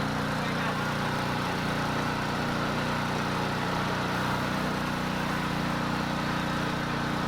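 Small petrol engine running steadily at an even speed, most likely the motor of a portable petrol water pump.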